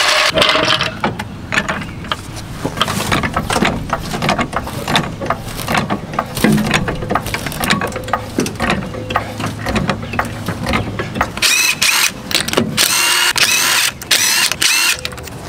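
Craftsman floor jack rolled over concrete and then pumped to lift the car, with many irregular clicks and clanks from its handle and lifting arm. About eleven seconds in, a cordless impact wrench takes over, whirring and hammering on the wheel's lug nuts.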